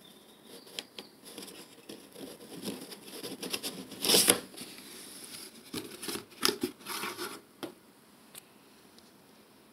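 Cardboard boot box being opened by hand: scraping and rustling of the lid and tucked flaps, loudest about four seconds in, then a cluster of scrapes and rustles between six and seven and a half seconds before it goes quiet.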